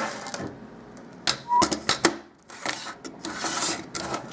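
Sheet-metal and plastic parts of a dismantled car stereo's tape-deck mechanism clicking and rattling as they are handled by hand: a handful of irregular clicks and short clatters.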